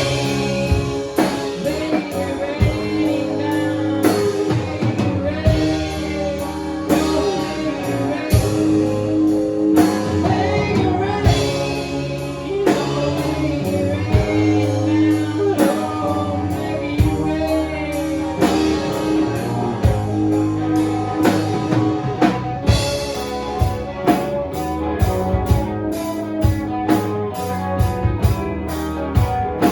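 Live band playing a slow blues-rock song: a singer over guitar and drum kit, with a steady drum beat.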